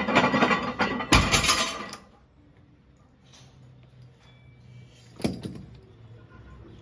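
Loaded deadlift barbell dropped onto the rubber-tiled gym floor about a second in: a heavy thud, then the iron plates clank and rattle for about a second. A second, lighter knock comes near the end.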